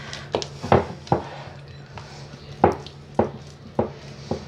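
A hand mixing a flour-and-oil dough in a glass bowl, with irregular clicks and knocks as the fingers strike the glass.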